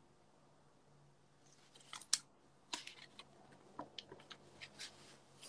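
A faint, irregular series of sharp, dry clicks and ticks close to the microphone. They start about a second and a half in, and the loudest comes just after two seconds, over a low steady hum.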